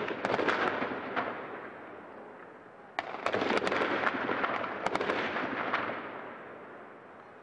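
Two volleys of rapid sharp cracks and bangs, one right at the start and a longer one from about three to six seconds in, over a dense crackling din that fades away toward the end.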